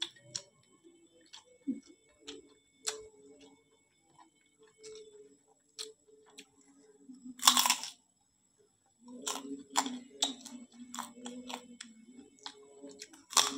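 Close-up eating sounds of a person chewing and crunching kerupuk crackers with rice. Scattered crisp clicks lead to one loud crunch about halfway through, followed by steadier chewing near the end.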